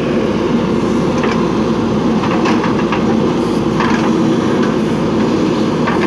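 JCB 3DX backhoe loader's diesel engine running steadily under load as the backhoe digs soil, with a few faint knocks along the way.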